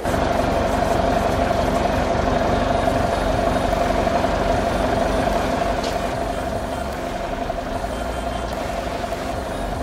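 Steady mechanical hum of a motor, with a constant pitched drone over a low rumble, easing slightly in level about halfway through.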